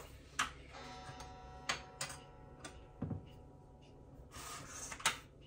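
Several light knocks and clicks of kitchen things being handled, with a short rustle near the end.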